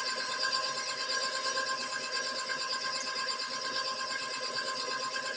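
KitchenAid stand mixer running steadily with its flat paddle beater turning through thick cake batter in a steel bowl: an even motor whine holding a few constant pitches.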